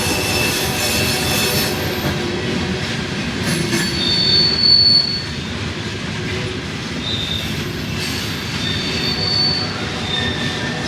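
Coal hopper cars of a freight train rolling by with a steady rumble, and wheel flanges squealing on the rails in high tones that come and go; the loudest squeal is about four to five seconds in.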